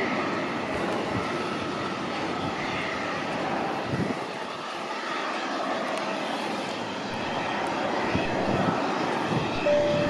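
Steady jet aircraft engine noise across an airport apron: a dense rush with a faint wavering whine.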